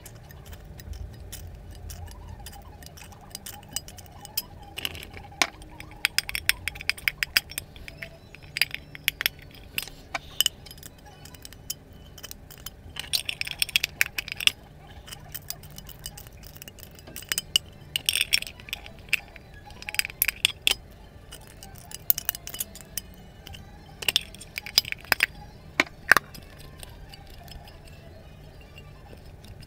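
Metal snips cutting into the sidewall of a tuna can: clusters of sharp metallic snips and clinks, with short pauses between cuts.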